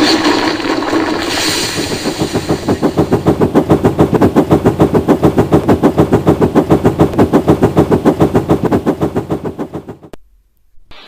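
Steam locomotive sound effect: a steady, fast chuffing of about seven puffs a second, fading out near the end.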